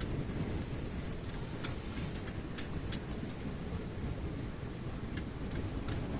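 Strong wind buffeting the microphone as a steady low rumble, with a few scattered sharp clicks over it.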